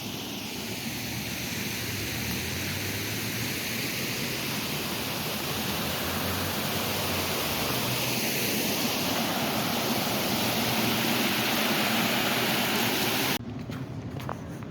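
Steady rushing noise of flowing water, slowly growing louder, then cutting off abruptly near the end.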